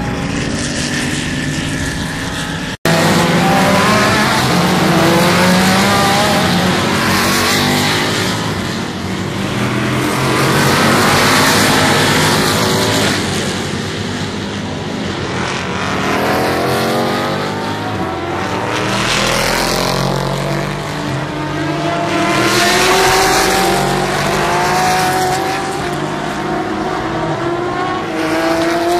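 Race car engines going past one after another at a road-course corner, each note climbing in pitch and swelling as the car accelerates away, several times over. The sound drops out briefly about three seconds in.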